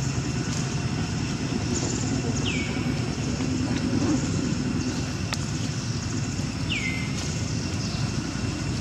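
Steady low outdoor rumble, like distant traffic or wind, with two short high chirps falling in pitch, a few seconds apart.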